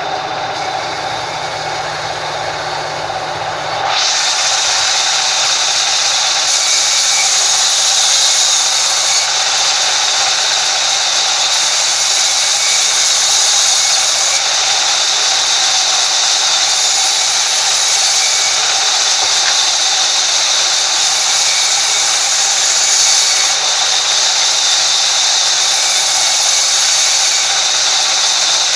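A sawmill's vertical band saw runs with its blade free, then about four seconds in the blade bites into a log, and a loud, steady, hissing sawing noise takes over as the log is ripped lengthwise into boards.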